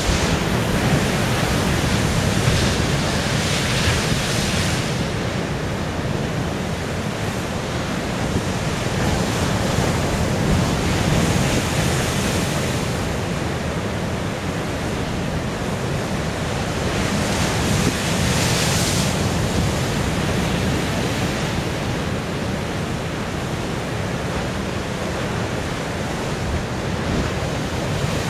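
Ocean surf crashing against rocks and spraying up through a narrow rock channel, a constant wash that swells with each breaking wave, about every seven or eight seconds. Wind rumbles on the microphone underneath.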